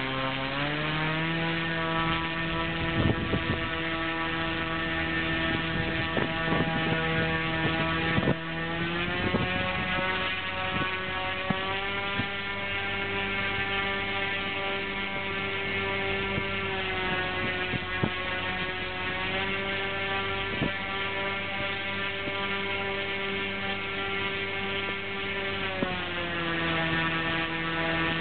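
Vortex W4822 electric motor spinning a 14x6 propeller under 6S battery power: a steady humming whine that steps up in pitch about a second in and again around nine seconds, dips and comes back up a few seconds later, and drops in pitch near the end as the throttle is changed.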